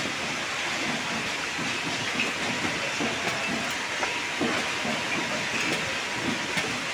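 Bottling-line conveyor and packing machinery running: a steady mechanical hiss and rattle with a faint constant whine, and a few scattered light knocks from boxed bottles being handled.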